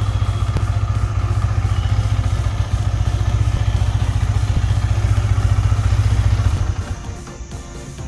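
Yamaha R15 V3's 155 cc single-cylinder engine idling steadily, then cutting out abruptly about seven seconds in as the GPS tracker's relay kills the ignition on a remote lock command sent from a phone.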